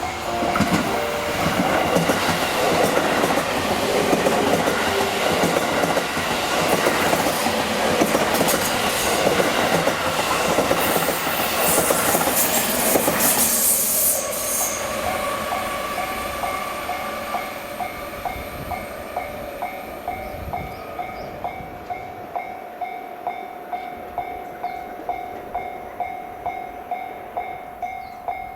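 A JR Hanwa Line train passes over the level crossing at speed, with loud rushing wheel-on-rail noise and clickety-clack that dies away after about fourteen seconds. Once it has gone, the crossing's warning bell is heard ringing with a steady repeating ding.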